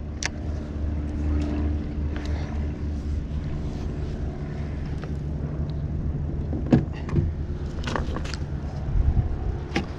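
Boat motor running steadily with a low hum, with a few sharp knocks and clatters inside the boat, the loudest near the end.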